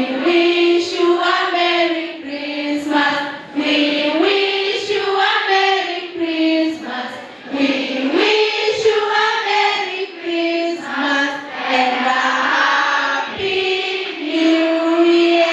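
A large group of schoolgirls singing together as a choir, a melody of long held notes stepping up and down.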